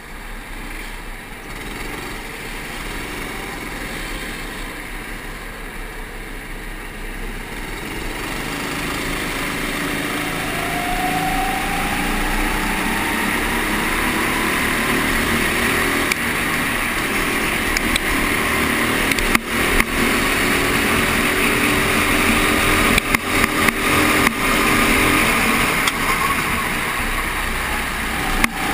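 Rental go-kart engines heard from the kart itself in a rolling race start: its own engine and the pack around it run, getting louder with a rising pitch about ten seconds in as the field accelerates. A few sharp knocks come in the second half.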